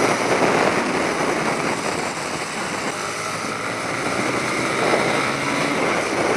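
A TVS Apache RTR 180's single-cylinder engine running while the motorcycle is ridden at speed, with its pitch rising about halfway through, mixed with a steady rush of wind noise.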